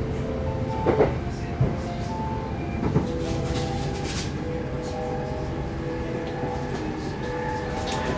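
Passenger train running along the track, heard from inside the carriage: a steady rumble with sharp knocks from the wheels about one and three seconds in.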